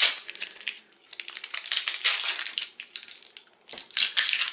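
Paper wrapping crinkling as a cut block of soap is unwrapped by hand, in three bouts with short pauses between.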